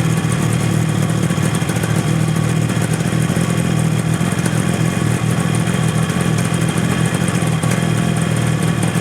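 Freshly rebuilt Yamaha RD350 two-stroke twin engine running steadily at idle during its warm-up, with no revving.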